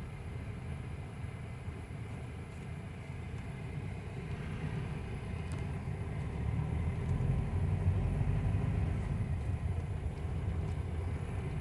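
Car driving along town streets, heard from inside the car: a steady low rumble of engine and tyres on the road, growing a little louder about halfway through.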